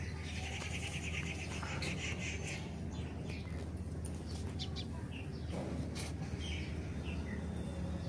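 Birds chirping and twittering: many short, high chirps with a stretch of rapid chattering, scattered throughout, over a steady low hum.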